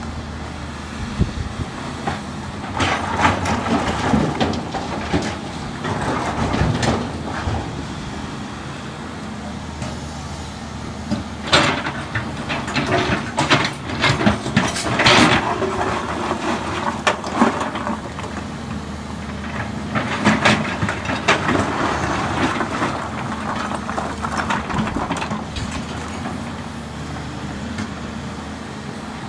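Volvo EC210B crawler excavator's six-cylinder diesel engine running steadily under hydraulic load while its steel bucket scrapes into a pile of broken rock. Stones clatter and tumble in bouts, the busiest stretch of clatter coming around the middle.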